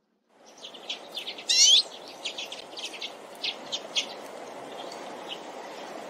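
Small finch singing a fast twittering song of short high chirps over steady background noise. The loudest phrase, a quick run of rising notes, comes about a second and a half in.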